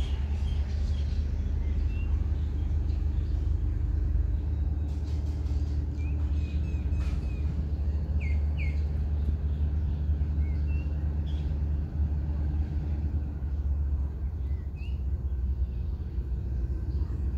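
A steady low rumble with birds chirping a few times over it.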